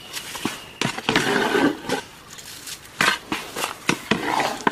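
Long metal stirring ladle scraping and knocking against the inside of a large aluminium cooking pot as thick khichuri is stirred: a string of irregular clacks and short scrapes.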